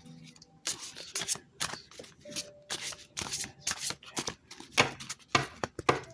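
A deck of reading cards being shuffled by hand: a run of quick, crisp riffles and slaps of card on card at an uneven pace.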